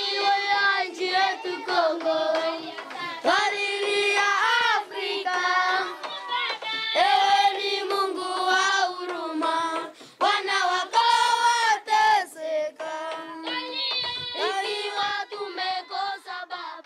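A group of children singing together, with long held notes.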